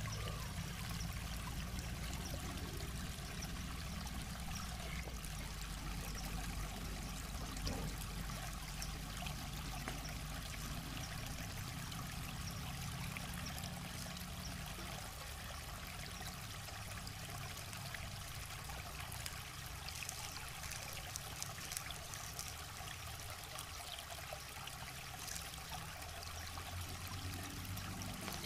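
River water flowing steadily, with a few faint crackles from a small wood fire.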